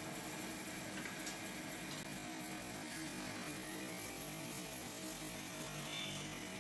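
Metal-spinning lathe running with a steady hum while a silver disc turns on it and is pressed over the former with a hand spinning tool.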